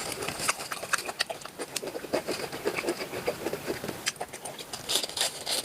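Close-up mouth sounds of someone eating cooked octopus: wet chewing, lip smacks and sticky clicks coming in quick, irregular succession.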